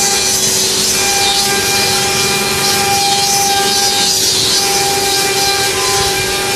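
Six-spindle CNC engraving router running: a steady spindle whine over a continuous hissing, grating cutting noise, with faint higher tones coming and going.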